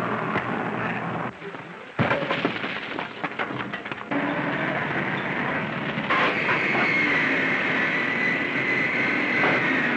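An old open car's engine running amid machinery noise: a few knocks and a quick clatter in the first seconds, then a steady mechanical rumble joined by a high, steady whine about six seconds in.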